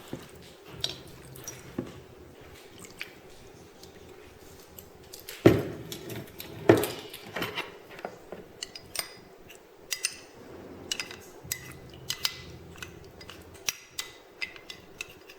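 A spoon clinking against a small bowl while water and corn starch are stirred together into a slurry, with two louder knocks in the middle and quick light clicks through the second half.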